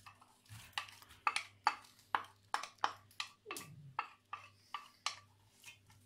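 Wooden spoon knocking and scraping against a small ceramic bowl and the pot as chopped onion is tipped out into hot oil: a long run of short, sharp taps at about three a second.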